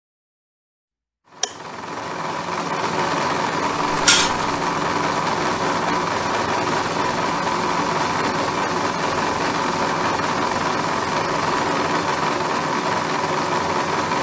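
Small electric motor of a miniature DIY rice mill switched on with a click about a second in. It speeds up and then runs steadily with a whine, driving the belt-driven mill as it husks paddy rice. A brief sharp sound about four seconds in.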